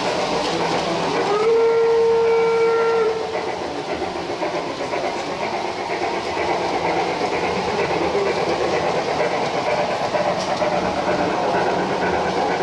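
Gauge 1 model steam locomotive sounding one steady whistle blast of about two seconds, then running on along the track with its freight wagons.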